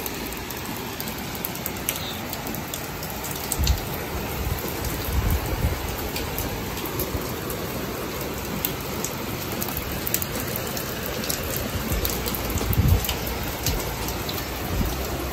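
Heavy rain falling steadily on a wet wooden balcony deck, with scattered sharp drop ticks and a few low thumps.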